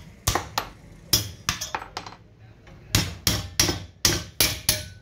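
Hammer blows on a tractor alternator's housing, knocking the case halves apart: about a dozen sharp knocks in two quick runs, with a pause about two seconds in.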